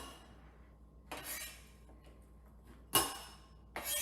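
Knife strokes on a cutting board while an onion is diced: a few separate knocks with a slight clink. The sharpest knock comes about three seconds in.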